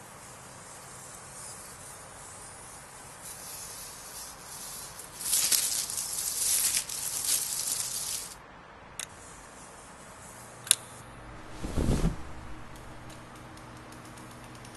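Steady hiss, with a louder burst of crackling hiss from about five to eight seconds in. Then come two sharp clicks, a low thud about twelve seconds in, and a low steady hum after it.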